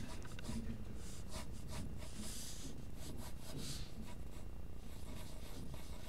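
Graphite pencil scratching over paper in a few short sketching strokes, over a steady low background hum.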